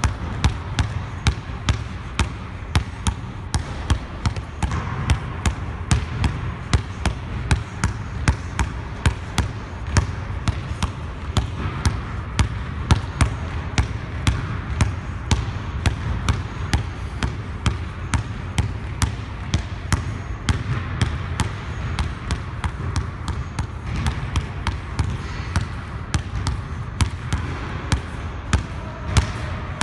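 Basketball being dribbled hard and fast on a hardwood gym floor, a steady run of sharp bounces about two to three a second.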